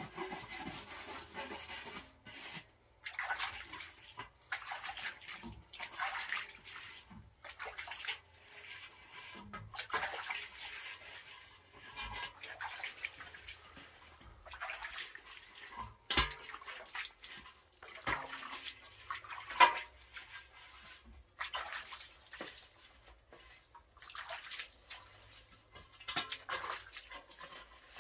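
Hand sloshing and stirring a wet white mix in a metal basin, in repeated splashy strokes every second or two, with a few sharper knocks of metal, the loudest a little past the middle.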